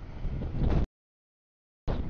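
CSX double-stack container freight train rolling past: a low rumble of the cars on the rails. The sound cuts out abruptly into dead silence just under a second in and comes back just before the end.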